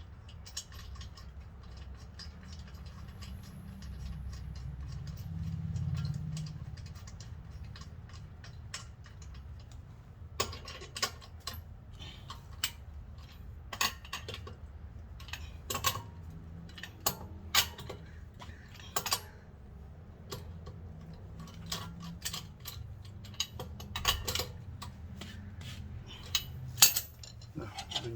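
Irregular metallic clinks and clicks of hand tools and hardware being handled during car brake and wheel work, growing busier and louder about ten seconds in, over a low rumble that swells briefly around five to six seconds in.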